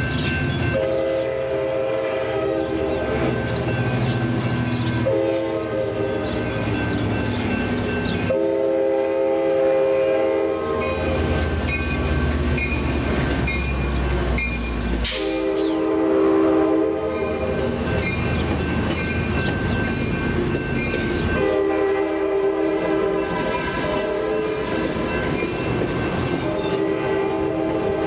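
Coaster commuter train departing, its locomotive horn sounding a chord in several long blasts over the low rumble of the moving train and its wheels on the rails.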